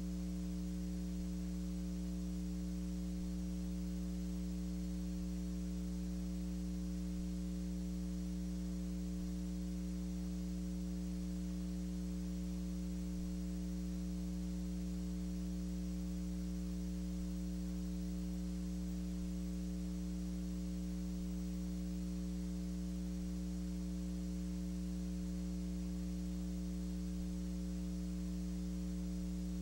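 Steady electrical mains hum with a buzz of overtones and a faint hiss, unchanging throughout, with no other sound.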